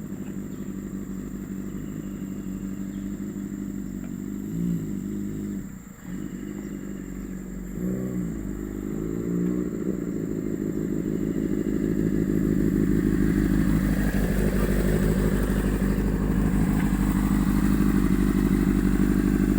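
Honda CBR600RR inline-four engine idling, with two short throttle blips. About halfway through, the revs rise and are held steady and louder to the end.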